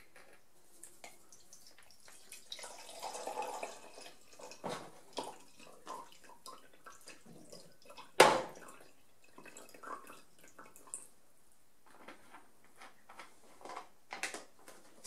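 Bleach solution poured from a pouch into a plastic measuring beaker, trickling and dripping, with light clicks and knocks of handling. A single sharp knock about eight seconds in comes as the film developing tank is handled for its agitation inversion.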